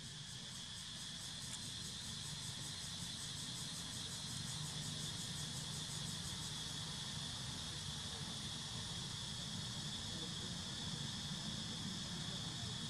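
A chorus of insects making a steady, high-pitched drone, with a faint low rumble underneath.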